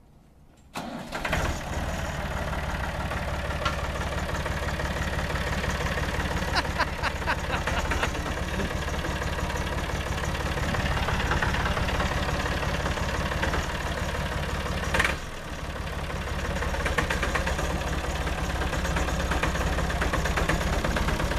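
Massey Ferguson 263 tractor engine starting about a second in, then running steadily. About fifteen seconds in there is a brief sharp sound, and the engine note dips for a moment before picking up again.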